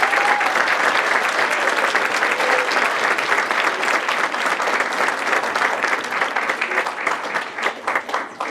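Audience applauding in a large crowd, a dense run of many hands clapping that dies away near the end.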